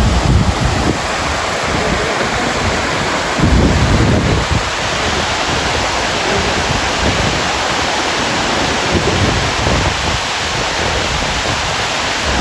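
Waterfall rushing close by: a loud, steady roar of falling water, with uneven low buffeting from wind on the microphone.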